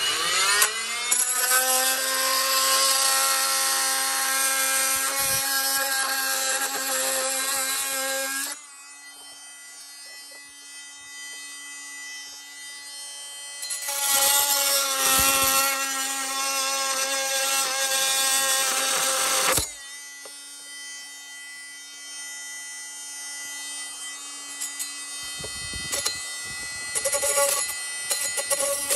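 Oscillating multi-tool starting up and cutting freehand into the soft metal of a carpet kicker head. A steady buzz that gets loud and harsh while the blade bites, for about eight seconds from the start and again from about fourteen to twenty seconds, with the tool running quieter in between. A few knocks come near the end.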